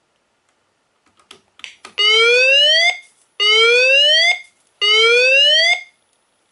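Fire alarm speaker/strobe, an Edwards unit fitted with a Wave 2 siren's speaker, sounding the whoop alert tone of a voice-evacuation system: three loud rising sweeps, each about a second long and cut off sharply. A few faint clicks come just before the first sweep.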